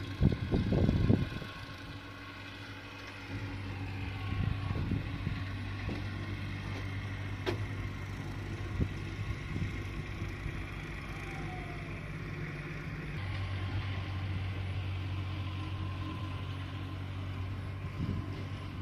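Steady low engine hum. A few loud low thumps come in the first second or so, and there is a single sharp click about halfway through.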